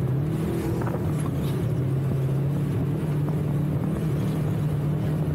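Off-road vehicle engine running at a steady, slightly wavering pitch while driving along a rough dirt track.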